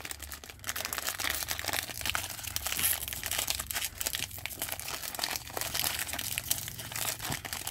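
Foil wrapper of an Upper Deck Stature hockey card pack crinkling and crackling as it is twisted and torn open by hand at its crimped top, in a steady stream of small crackles and ticks.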